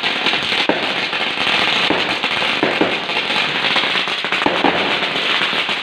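Firecrackers going off in a dense, unbroken crackle, with a few louder cracks standing out above it.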